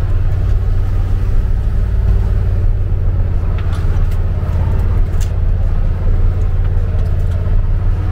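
4x4 expedition truck's engine running steadily while driving, a loud low rumble, with a few faint ticks about halfway through.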